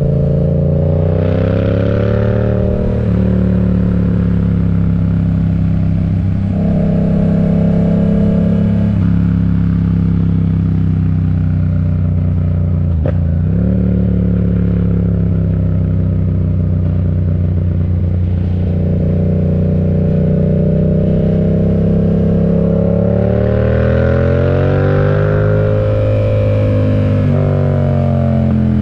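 Yamaha MT-07's parallel-twin engine through an aftermarket M4 exhaust, riding under way: the engine note rises and falls with throttle and gear changes, with a short sharp dip in pitch about halfway through and a long rise near the end that falls back suddenly.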